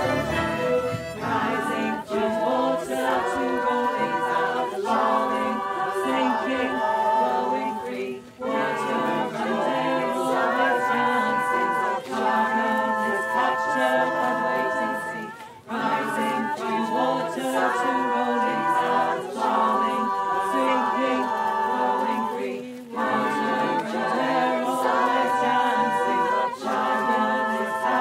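A choir singing unaccompanied, phrase after phrase with short breaks between.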